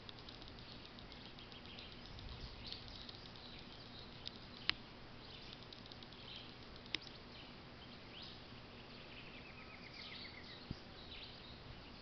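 Faint outdoor ambience of wild birds calling and chirping with insects, broken by a few sharp clicks; in the last third a quick run of notes falls in pitch.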